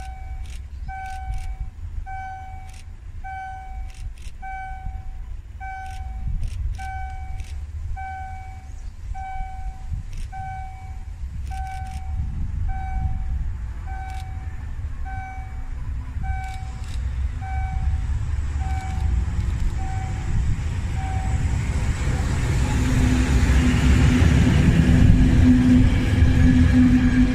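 Diesel freight locomotive with tank wagons approaching and passing close by, its engine rumble growing steadily louder and turning into a steady low hum as it reaches the microphone, followed by the wagons rolling past. A high beep repeats about once a second through the first two-thirds and fades out.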